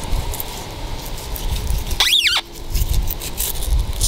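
Fillet knife cutting into a mutton snapper behind the head, scraping through scales and skin with scattered small clicks over a low rumble. About two seconds in comes a short high squeak that rises and falls.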